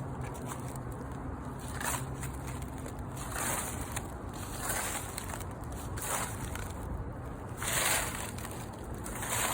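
Footsteps crunching through dry fallen autumn leaves, a crunch about every second and a half.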